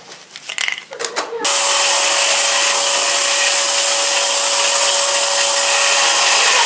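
Eureka Forbes Xforce vacuum cleaner motor switched on about a second and a half in, then running steadily with a loud rushing of air and a steady whine. A few handling clicks come before it starts.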